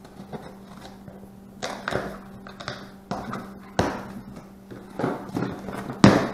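Knife slitting packing tape on a cardboard box and the flaps being pulled open: a series of short scraping rips, with the loudest sharp crack of cardboard just after six seconds in.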